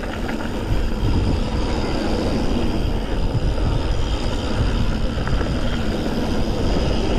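Mountain bike being ridden on a dirt trail: wind rushing over the microphone and tyre rumble from the trail, a loud, steady noise.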